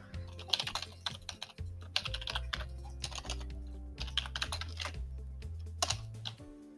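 Typing on a computer keyboard: a quick, uneven run of keystrokes that stops near the end, over soft background music.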